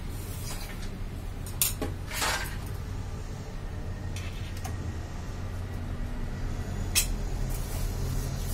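A metal screwdriver clinking and scraping against metal parts inside an opened photocopier: a sharp click about a second and a half in, a short scrape just after, and another click about seven seconds in, over a steady low hum.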